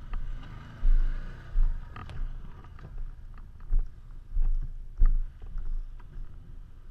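Heavy footfalls on loose dirt as the camera wearer climbs a dirt mound, five thuds in two groups, over a low rumble of wind on the microphone and a side-by-side's engine running faintly.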